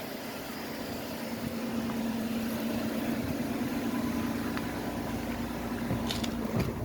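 Van engine running with road noise heard from inside the cab, a steady hum.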